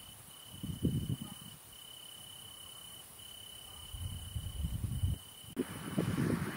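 Crickets trilling: a steady high note broken by short gaps every second or so. Several brief low rumbles are louder than the trilling: one about a second in, one around four seconds, and one near the end, when a steady hiss also sets in.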